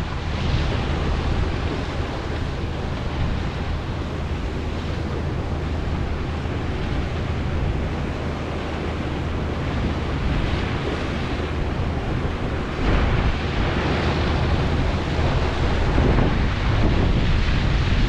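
Wind buffeting the microphone in gusts, more strongly in the last few seconds, over a steady low engine hum.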